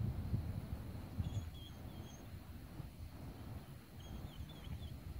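Small songbirds chirping in two short twittering runs, about a second in and again about four seconds in, over a low, uneven rumble of wind on the microphone.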